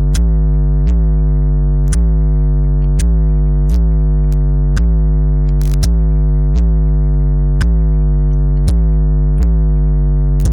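Electronic music: a deep synthesizer bass note repeated about once a second, with very heavy low bass.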